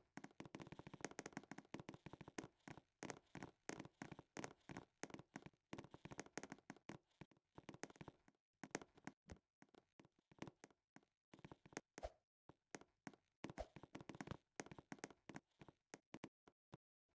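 Faint, rapid, irregular tapping and clicking, with a few short pauses and sparser taps near the end.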